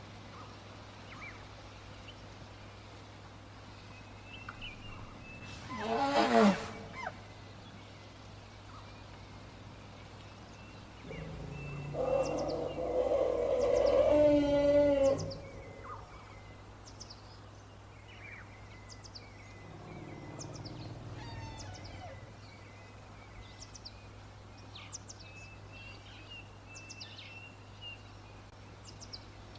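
African bush elephants calling: a short call falling in pitch about six seconds in, then a longer, louder call a few seconds later, with a weaker one after it. Small birds chirp throughout.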